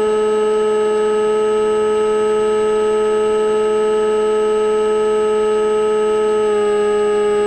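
Electric motor and propeller of an AXN floater jet RC plane holding a steady whine in flight. The pitch steps down slightly about six and a half seconds in as the throttle eases.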